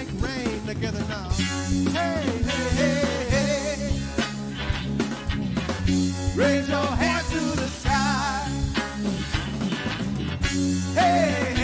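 A live rock band playing: electric guitar, bass guitar and drums, with a man singing phrases with a wavering vibrato over the steady beat.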